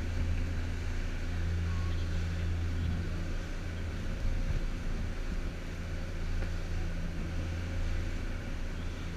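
Tour boat's engines droning steadily while under way: a constant low hum, with a rushing noise of wind and water over it.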